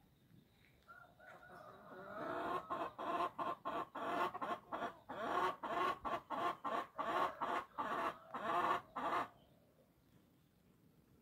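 A bird calling in a fast run of short, repeated pitched notes, about three a second, starting about two seconds in and stopping some seven seconds later.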